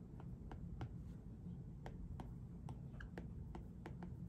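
Apple Pencil tip tapping and scratching on the bare glass screen of an iPad Pro while writing: a run of light, uneven clicks, about three a second, each time the tip lands at the start of a stroke. The screen has no protector, and the contact sounds scratchy to the writer.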